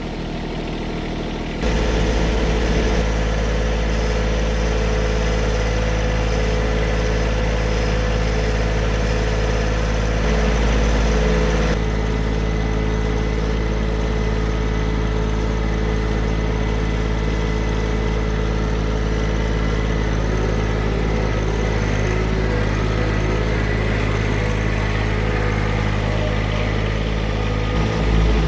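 Vehicle engine running steadily while the vehicle is driven over garden soil, packing tire tracks into rows. The engine gets louder about a second and a half in, and briefly louder again about ten seconds in and near the end.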